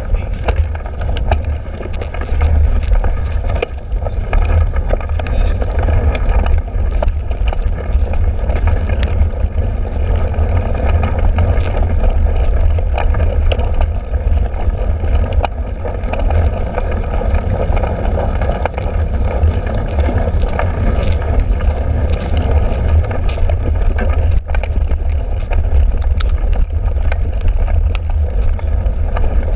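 Cyclocross bike ridden fast over bumpy, muddy grass, heard from a handlebar-mounted camera: a loud, steady rumble of wind and tyre noise, with frequent small rattles and knocks from the rough ground.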